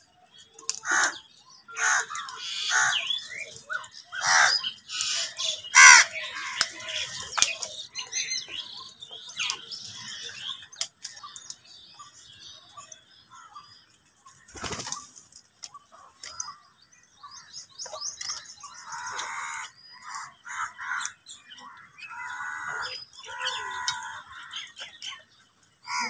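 A flock of house crows cawing, many harsh calls overlapping and loudest in the first several seconds, with another run of calls later on. A brief whoosh comes about halfway through.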